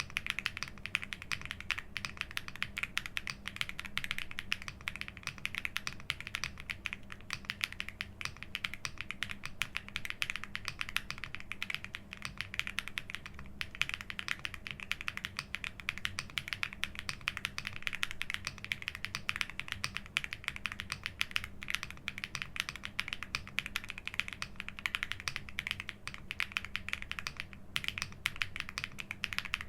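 Continuous fast typing on a Weikav Lucky65 V2 mechanical keyboard fitted with KTT Hyacinth switches and doubleshot ABS keycaps: a dense run of key clacks, with brief lulls about halfway through and near the end.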